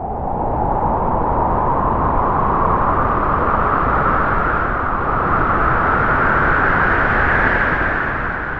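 Howling wind sound effect: one long gust that swells in, rises slowly in pitch, then drops and fades near the end.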